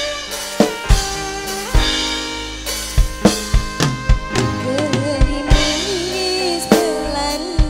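Live dangdut band playing an instrumental passage: loud, irregular drum strokes over a sustained, wavering melody and bass.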